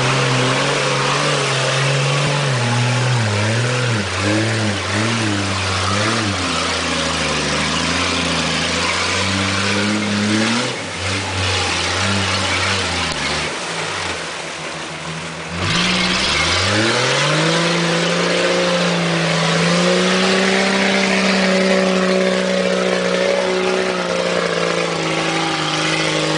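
Off-road 4x4 vehicle's engine revving up and down repeatedly, over a constant rushing noise. About halfway through it eases off briefly, then climbs quickly and holds at high revs before falling away near the end.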